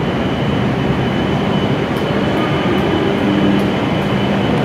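Steady noise of a W7 series Hokuriku Shinkansen train alongside the platform, with a thin high steady whine and faint regular ticks, about two or three a second, from about halfway through.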